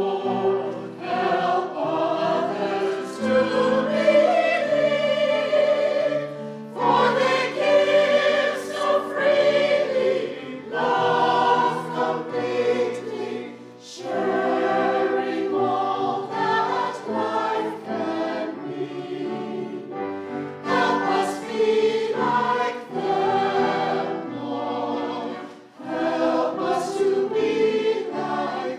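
Church choir singing an anthem with keyboard accompaniment, in sung phrases broken by short pauses for breath.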